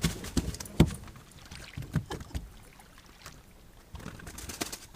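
Irregular knocks and thumps in a small fishing boat, the loudest about a second in, thinning out and picking up again briefly near the end.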